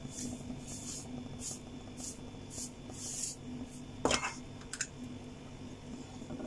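Silicone spatula stirring milk in a kadai, scraping across the pan in short strokes about twice a second, then a sharp knock about four seconds in. A faint steady hum runs underneath.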